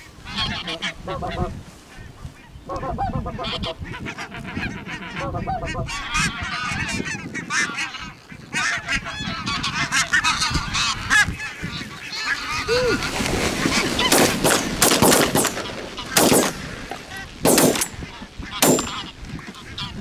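A flock of barnacle geese calling overhead in a dense chorus of honks. In the second half, several shotgun shots go off in quick succession over about four seconds.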